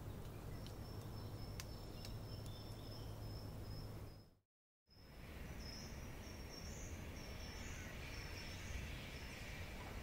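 Forest ambience with birds: a high, thin, steady trill, then wavering high chirping calls over a faint hiss and low hum. Midway the sound cuts out to dead silence for about half a second, as at a splice in the recording.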